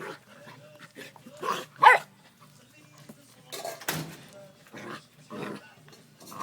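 Two Labrador retriever puppies play-fighting, giving short barks and growls in separate bursts, the loudest bark a little under two seconds in.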